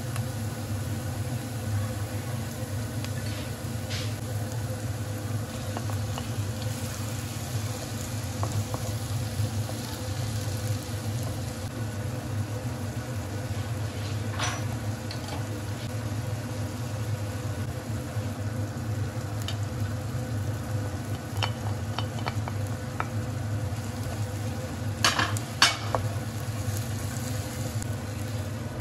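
Onions and tomatoes frying in a nonstick pan with a steady sizzle while a wooden spatula stirs them. A few sharp knocks of utensils on the pan are scattered through, the loudest two close together near the end, over a steady low hum.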